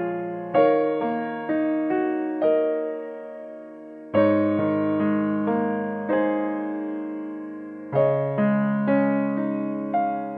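Background music: solo piano playing a slow, gentle tune, with a chord struck about every four seconds and single melody notes between, each note dying away.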